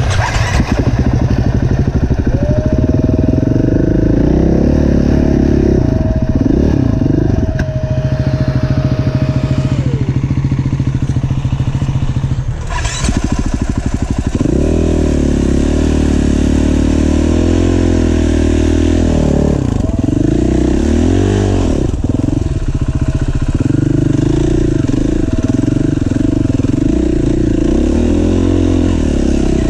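KTM EXC-F four-stroke enduro motorcycle engine running under the rider, its pitch rising and falling with throttle and gear changes. The engine note dips briefly a little before halfway through, with one sharp knock, then picks up again.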